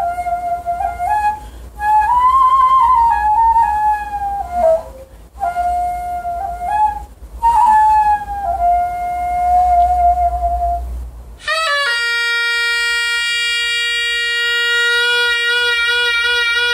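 Daegeum, the Korean large bamboo transverse flute, playing a slow melody with sliding, bending notes. About eleven seconds in it stops, and a taepyeongso, the Korean double-reed shawm with a brass bell, comes in with one long, loud, bright held note.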